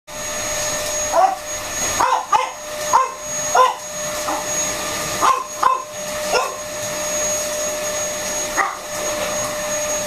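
Vacuum cleaner running with a steady whine while a French bulldog barks at it in short yappy barks, about ten of them, mostly in the first seven seconds with one more near the end.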